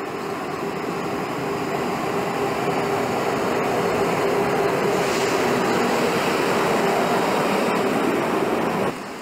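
ÖBB Class 1042 electric locomotive running past: a steady hum with wheel and rail noise, growing louder as it comes close, then cutting off suddenly near the end.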